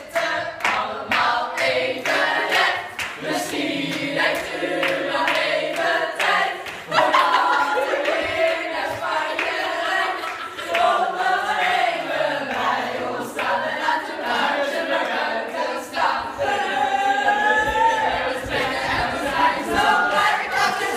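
A group of mostly female voices singing a Dutch Sinterklaas song together, unaccompanied.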